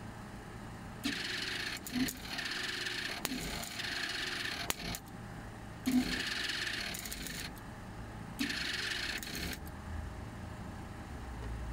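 MIG welder stitch-welding a steel patch plate into a van's sill, crackling and sizzling in about five short runs of a second or so each, with brief pauses between them.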